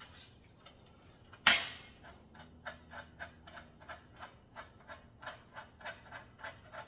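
A single sharp knock, then steady mechanical ticking about four times a second from a bicycle being worked on, like a wheel or freewheel turning.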